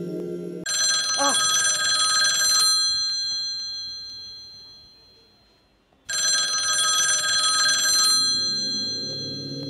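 Mobile phone ringing with a bell-like ringtone: two rings about five seconds apart, each starting suddenly, holding about two seconds, then fading away slowly.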